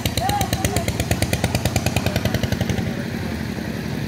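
Truck engine running at idle with a fast, even knock of about ten beats a second, settling into a smoother steady hum about three seconds in.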